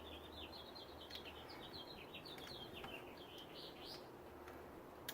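A small bird singing faintly, a quick twittering run of short high chirps that stops about four seconds in. A single sharp click sounds near the end.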